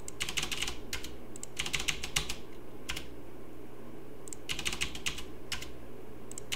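Computer keyboard keys tapped in short flurries of several quick keystrokes with pauses between, as blank lines are inserted into a text file.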